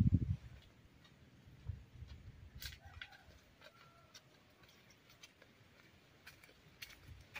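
Quiet rural ambience with a few short, faint chirps and clicks scattered through it, and soft low thumps at the very start.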